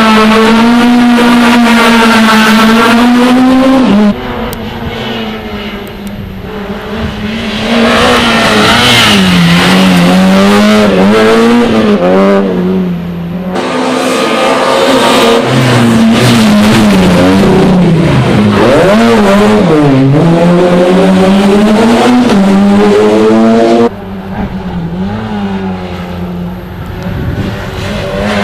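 Rally cars at full throttle on a special stage, engines revving high with pitch rising and falling through gear changes as they pass. Several separate passes follow one another, with sudden changes in sound a few times.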